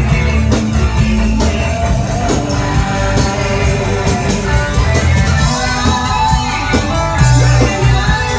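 Live band playing rock-style music, with drums, bass and electric guitar and a singing voice over them.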